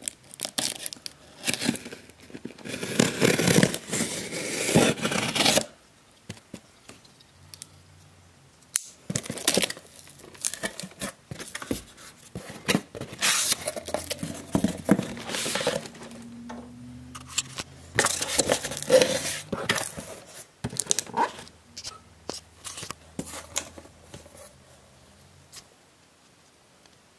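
Packing tape on a cardboard box being slit and torn with a small knife, and the cardboard flaps pulled open and rustling, in irregular bursts with quiet pauses between.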